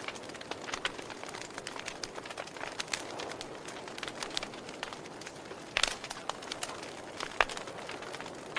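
Wood fire crackling: irregular sharp pops and snaps over a steady low hiss, with a few louder pops in the second half.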